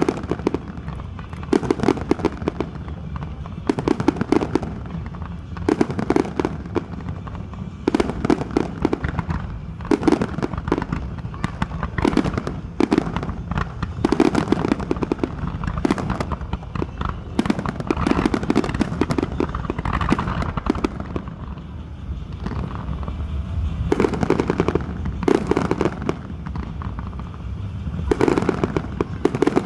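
Fireworks display going off: volleys of bangs and crackles every second or two, with a brief lull about two-thirds of the way through.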